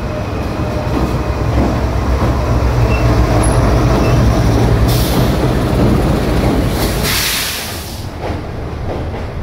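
A train at the station gives a steady, loud low rumble, with a short burst of hissing about five seconds in and a longer one around seven seconds.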